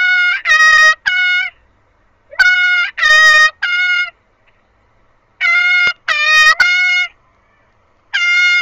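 High-pitched, trumpet-like calls in four groups of three short, steady notes, with about a second of silence between groups. They are dubbed in as the cat's 'voice' sounding out the Arabic letters alif, ba and ta as they are pointed to, three syllables to a row.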